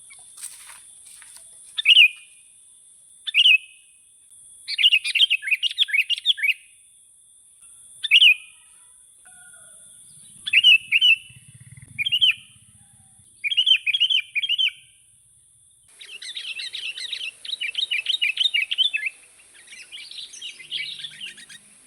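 Small songbird calling: short chirps and bursts of rapid chattering notes, repeated every second or two and running almost without a break near the end, over a steady high hiss.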